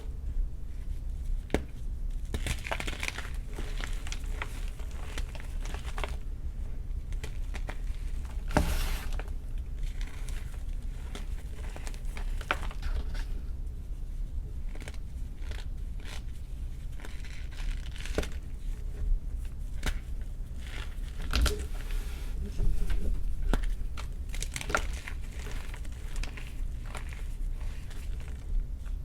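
Baked gym chalk being crushed and crumbled, with a steady run of small irregular crunches and crackles and a few louder snaps.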